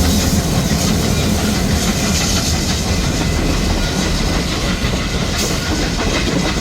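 Canadian Pacific 2816 steam-hauled train rolling past close by: a steady, loud rumble of the train on the rails.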